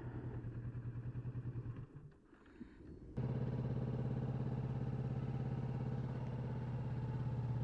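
Motorcycle engine idling with a steady pulse; it drops out about two seconds in and comes back louder about a second later.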